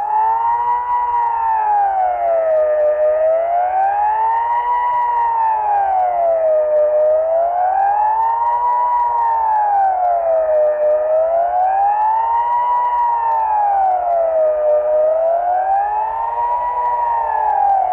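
Swiss civil-defence siren sounding the 'general alarm' (Allgemeiner Alarm): a wailing tone that rises and falls evenly, about once every four seconds. It switches on abruptly at the start.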